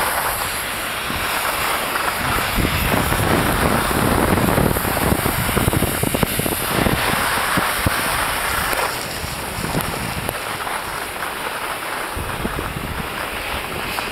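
Wind rushing and buffeting over the microphone of a camera carried by a skier going downhill, a steady rough roar that eases a little about nine seconds in.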